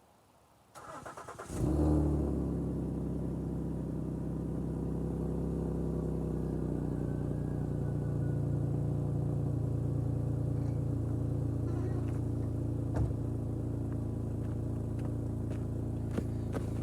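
A 2016 Ford Taurus Police Interceptor sedan's V6 cold-starting on its stock dual exhaust, which has a small exhaust leak. The starter cranks briefly, the engine catches about a second and a half in with a short flare of revs, then settles into a steady idle.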